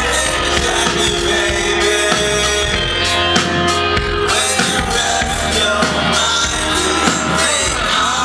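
A live rock band playing loudly: a drum kit, electric guitar and a heavy, steady bass, recorded from the crowd at a concert.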